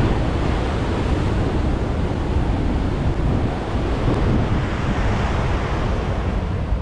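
Ocean surf breaking, steady and unbroken, mixed with wind buffeting the microphone as a deep rumble.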